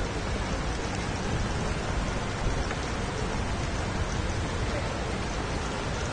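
Heavy rain pouring down on a city street, a steady, even hiss of downpour.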